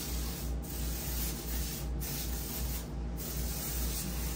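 Aerosol disinfectant spray can hissing in four long bursts, with short breaks between them about once a second, as a bed is being sanitized.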